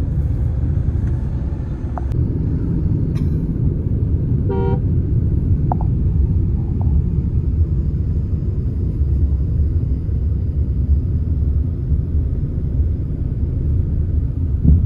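Steady low road and engine rumble of a Mahindra XUV700 driving on the highway, heard from inside the cabin. A vehicle horn gives one short toot about four and a half seconds in.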